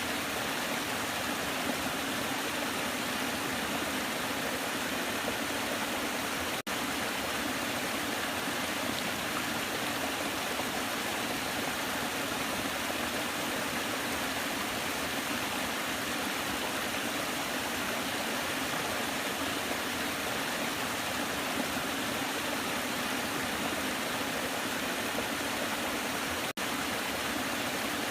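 Waterfall rushing in a steady, even wash of water noise, cutting out momentarily twice.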